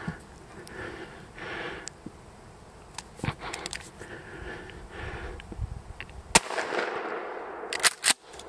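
A single 12-gauge shotgun shot from a Mossberg 590 Shockwave firing a low-recoil Foster slug: one sharp, loud crack about six seconds in that rings out for about a second afterwards. A couple of sharp clicks follow about a second and a half later.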